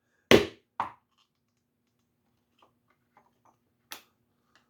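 Mallet striking a diamond stitching chisel through leather: one loud, sharp strike, then a lighter one half a second later, followed by faint clicks of the tools being handled.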